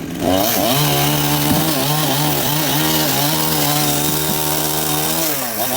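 Chainsaw engine running steadily under load at one pitch, revving up just after the start and dipping then picking up again near the end.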